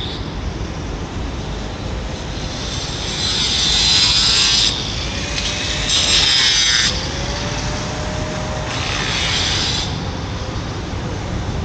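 A construction power tool cutting in three harsh, hissing bursts of one to two seconds each, over a steady low rumble of wind on the microphone.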